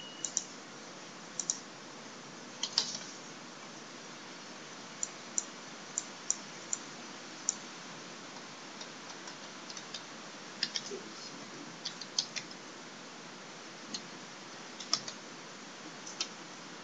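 Scattered keystrokes and clicks on a computer keyboard, irregularly spaced, over a steady background hiss.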